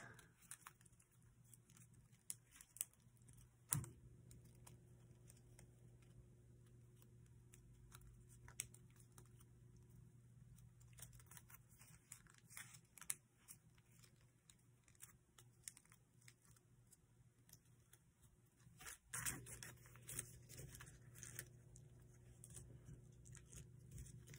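Faint rustles and taps of paper being handled and creased while an origami jet is folded, with a couple of slightly louder crinkles about 4 and 19 seconds in, over a low steady hum.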